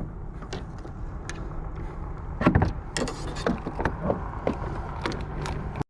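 Knocks and clunks on a kayak over a steady low rumble, with the loudest cluster of knocks about two and a half seconds in.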